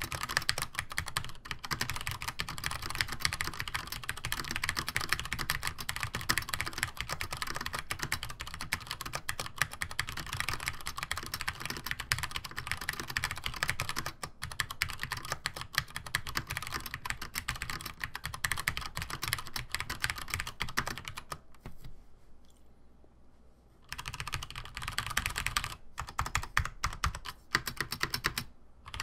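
Fast, continuous typing on a Compaq-branded Cherry G80-1800 keyboard with vintage PCB-mounted Cherry MX Brown tactile switches and Cherry doubleshot keycaps, the keys clacking in a rapid stream. The typing stops for about two seconds roughly three-quarters of the way through, then resumes.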